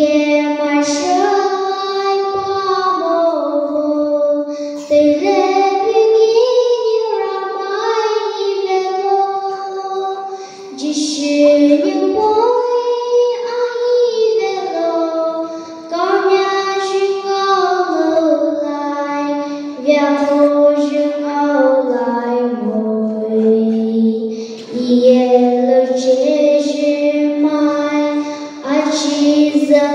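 A young girl singing a solo with no accompaniment, amplified through a handheld microphone, in sustained phrases with short pauses for breath.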